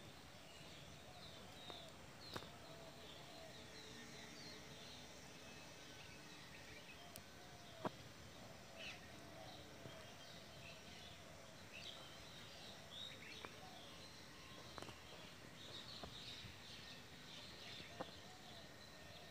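Faint outdoor ambience with small birds chirping in short high calls scattered throughout, and a few sharp clicks, the loudest about eight seconds in.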